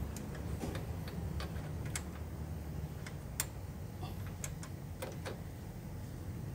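Scattered light clicks and taps of a screwdriver and hands on metal parts around the alternator of an engine that is switched off, with one sharper click about three and a half seconds in, over a low steady hum.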